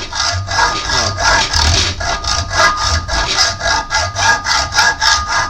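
Small hacksaw cutting a shallow groove into a metal pin clamped in a vise, in quick back-and-forth strokes, about four to five a second, with a faint metallic ring. It is grooving the pin to seat an O-ring.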